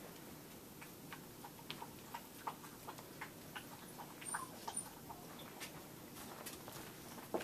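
Young Samoyed puppies playing on a blanket: scattered light ticks and taps of paws and play, with a few faint high squeaks about halfway through.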